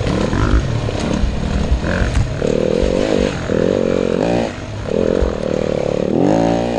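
Yamaha WR250F four-stroke single-cylinder dirt bike engine heard on board, revving up and easing off again and again as the bike rides the trail, its pitch climbing in several runs, the longest near the end, over a low rumble of wind and the bike bouncing.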